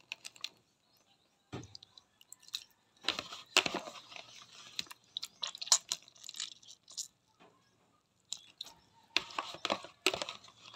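Wet squelching and squishing of raw fish pieces being squeezed and kneaded by hand in vinegar in a plastic tub, the vinegar wash that takes away the fishy smell. It comes in several irregular spells with short pauses between.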